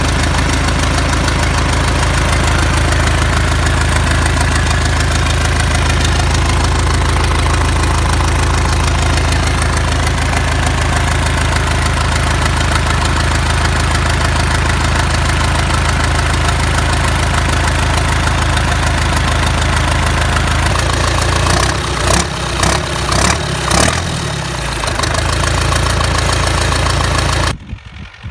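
Turbocharged four-cylinder D-240 diesel of an MTZ-80 tractor, fitted with a TKR-7 turbocharger, running loud and steady. The engine note turns uneven and choppy about three quarters of the way through, then cuts off suddenly near the end.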